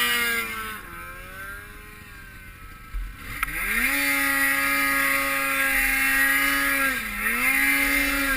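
Snowmobile engine revving up and easing off near the start, then about three seconds in accelerating hard to a steady high-rpm run, with a brief drop in throttle about seven seconds in.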